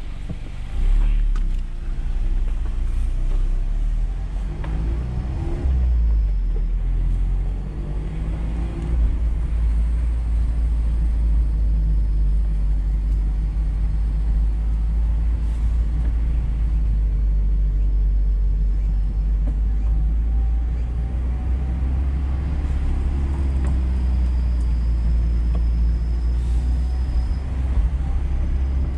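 Mazda MX-5 Miata driving slowly with its top down: a steady low engine and road rumble, with the engine note rising briefly a few seconds in and again near the end.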